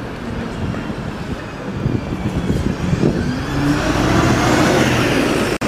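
A large vehicle, a bus, tram or train, drawing close and passing, its running noise growing louder with a rising whine over the last couple of seconds. The sound cuts off suddenly near the end.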